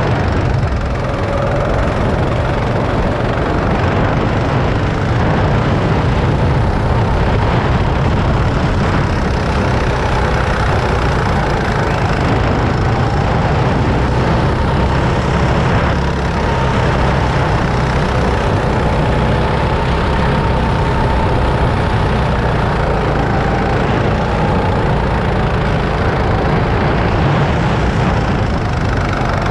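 Go-kart engine running while the kart is driven around the track, heard from the driver's seat under a heavy low rumble. Its note drifts gently up and down with the throttle.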